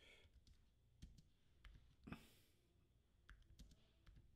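Faint computer keyboard typing: a few scattered key clicks, with a breath about two seconds in.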